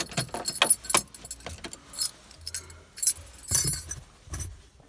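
A bunch of car keys jangling and clicking in short irregular bursts as the key is worked in a damaged ignition key cylinder of a 1995 Toyota Corolla that will not turn.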